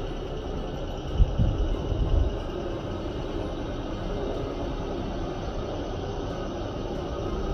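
KRDI diesel railcar running close by: a steady mechanical noise, with low thumps about one and two seconds in.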